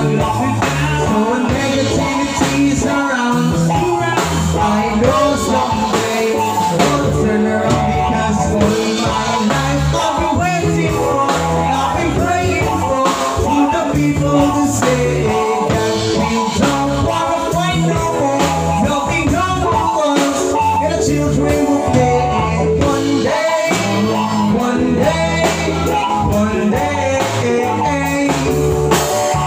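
Live band music: a man singing into a microphone over acoustic guitar, with a steady low bass line underneath.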